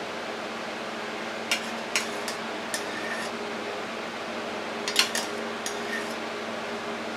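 A metal spoon clinking against a stainless steel saucepan while soup is spooned out: a few light clinks about a second and a half in, then a second cluster about five seconds in that holds the loudest clink. A steady low hum runs underneath.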